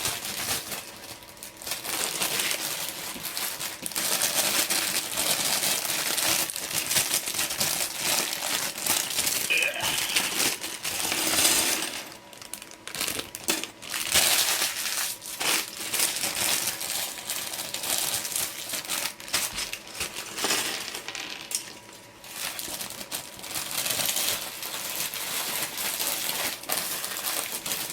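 Plastic LEGO pieces clattering and rattling as they are poured out of their bags, with the crinkle of the plastic bags being handled and torn open.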